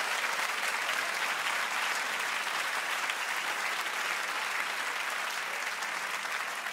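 Large audience applauding, a dense steady patter of many hands clapping that tapers a little near the end.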